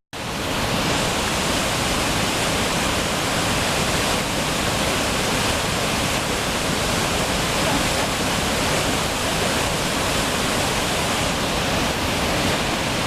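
Waterfall pouring with a steady, even rush of water, coming back in after a brief dropout right at the start.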